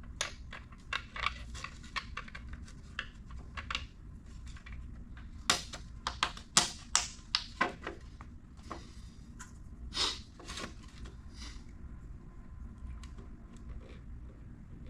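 Irregular clicks and taps of hard 3D-printed plastic whistle parts being handled and fitted together, with a denser run of louder clicks around the middle.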